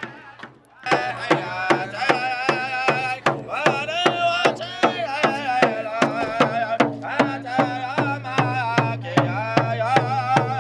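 Pow wow drum and singers: a steady drumbeat of about three strokes a second under high, wavering voices in unison, coming in loud about a second in.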